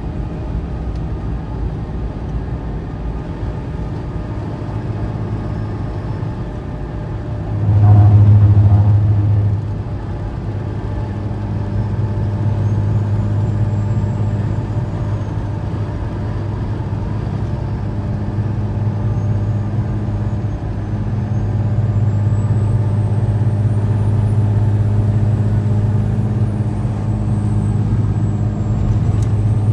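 Steady low drone of a Ram 5500 diesel truck cruising at highway speed, heard from inside the cab, with a brief louder swell about eight seconds in.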